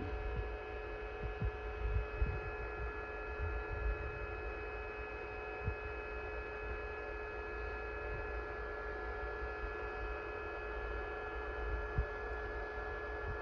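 Steady electrical hum with several faint steady tones, and scattered soft low thumps.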